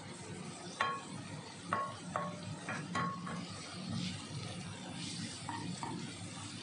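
Sliced mushrooms frying in a stone-coated pan and being stirred with a wooden spoon: a faint steady sizzle, with a handful of short ringing knocks as the spoon strikes the pan, most in the first half.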